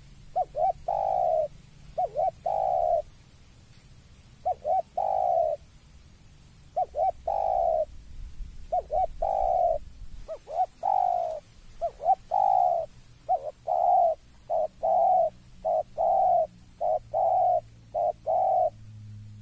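Spotted dove cooing: about a dozen phrases, each two or three quick short notes followed by a longer drawn-out coo. The phrases come faster, nearly back to back, in the second half. This is the call a spotted dove gives on seeing a rival.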